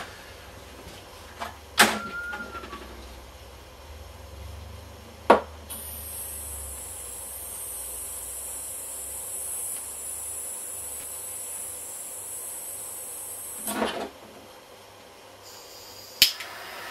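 Pressurised gas from a handheld tool hissing steadily and high-pitched for about eight seconds, starting about six seconds in. Sharp clicks of the tool being handled come about two and five seconds in and again near the end.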